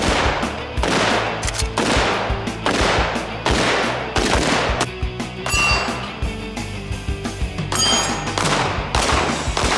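Repeated gunshots, about one or two a second, each with a short echo, over background music.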